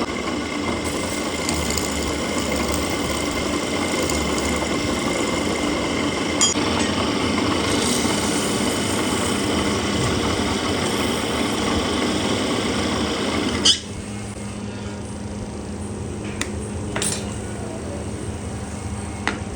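A woodworking power tool running steadily, then shutting off abruptly about two-thirds of the way through. A lower steady hum and a few sharp knocks follow.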